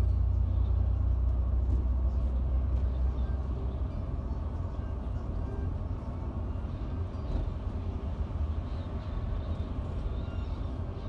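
Deep, steady engine and road rumble inside a Mercedes-Benz Travego coach cruising on a highway, easing slightly about four seconds in.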